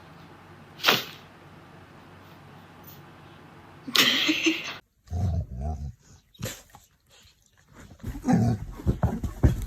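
A household pet making short vocal sounds in several separate bursts: a sharp one about a second in, a louder noisy one about four seconds in, then low-pitched ones after.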